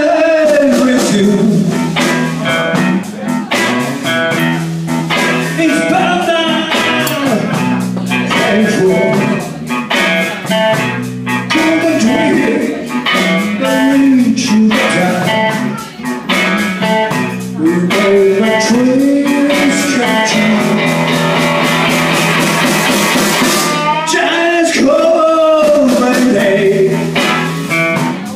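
Live band playing amplified electric guitars over a drum kit, with the lead line bending up and down in pitch throughout.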